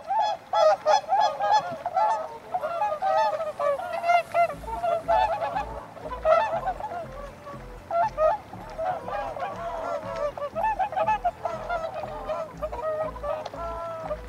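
Flock of waterfowl honking, many rapid calls overlapping without pause. A low, regular pulsing beat joins about four seconds in.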